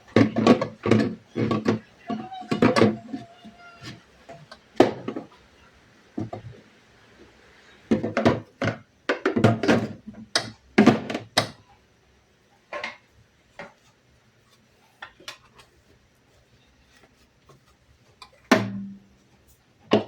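Household clatter: hard objects being handled and set down, making clusters of knocks and clunks, with a quiet stretch in the second half and a single heavy clunk near the end.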